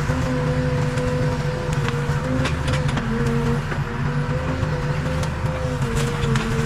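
Diesel engine of a Case 580 Super K backhoe loader running steadily under working load, its pitch dipping and recovering slightly, with scattered light clicks and knocks.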